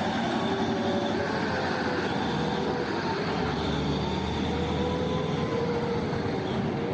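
Heavy machinery running steadily, with whining tones that drift slowly up and down in pitch.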